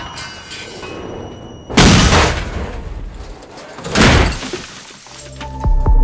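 Movie car crash: a loud smash with shattering glass about two seconds in, a second smash about two seconds later, each dying away, then sustained soundtrack music comes in near the end.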